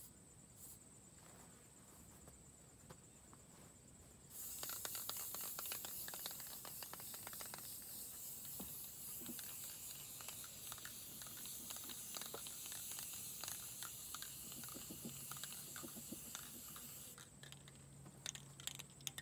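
Aerosol spray-paint can spraying in one long hiss, starting about four seconds in and stopping a few seconds before the end; the can is running nearly empty.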